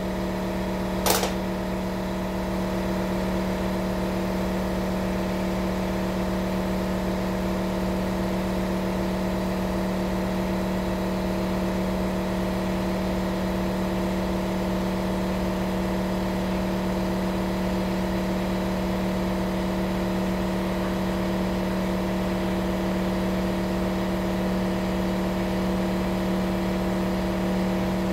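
A steady machine hum with several fixed tones that never change in pitch or level, and one sharp click about a second in.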